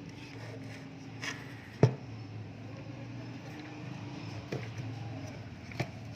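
A few sharp clicks and knocks, the loudest about two seconds in, over a steady low hum.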